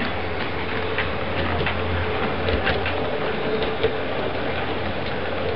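Model train running on layout track: a steady electric-motor hum with irregular clicks from the wheels crossing rail joints.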